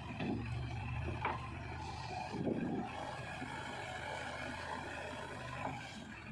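Heavy diesel machinery engine running steadily at low revs, with a few faint knocks.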